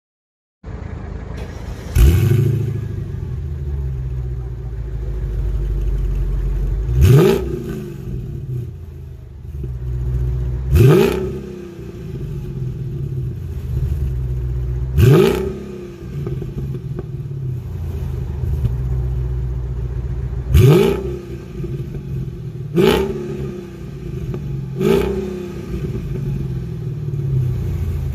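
Mercedes C55 AMG's 5.4-litre V8 idling through a custom exhaust and blipped seven times: each throttle blip sends the pitch sharply up and it drops straight back to a steady idle.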